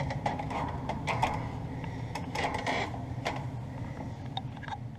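A steady low hum from the running gas furnaces, with irregular knocks and clicks over it.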